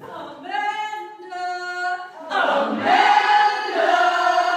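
Group of women singing together without instruments, in two long held phrases.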